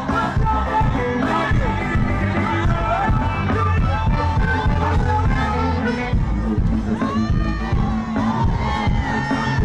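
Loud music with a heavy bass beat and a singing voice over it, with crowd noise underneath.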